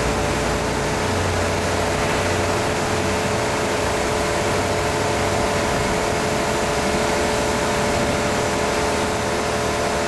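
Steady machinery noise: a constant motor hum with several steady tones over an even hiss, unchanging throughout.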